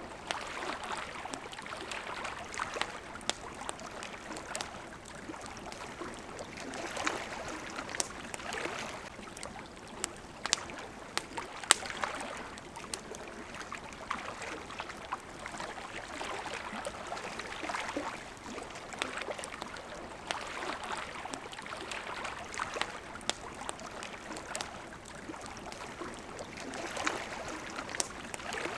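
Water lapping against a shore in gentle swells every few seconds, over the sharp pops and crackles of a wood campfire; the loudest pop comes a little before the middle.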